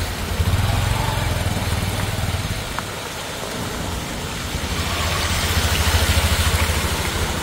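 Motor vehicle engines running as traffic drives through standing floodwater, over a steady hiss of rain and water noise. The engine sound swells again in the second half, as a motorcycle approaches.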